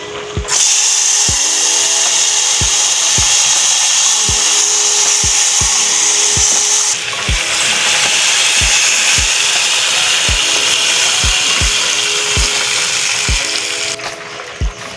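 Seasoning frying in hot oil in a stainless steel pot: a loud sizzle that starts about half a second in. After a cut, cooked beans with their broth are poured into the sizzling pot, and the sizzle goes on until it stops near the end. Background music with a steady beat plays underneath.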